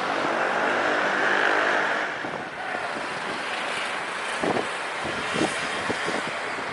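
Aircraft engine noise from a plane moving on or over the airport, a steady rushing sound loudest in the first two seconds and then easing. Wind buffets the microphone with low thumps in the second half.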